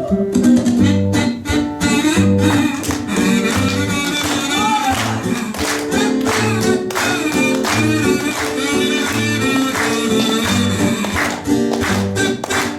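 Instrumental break in a song: guitar-led accompaniment over a steady bass beat, with a wavering melody line on top.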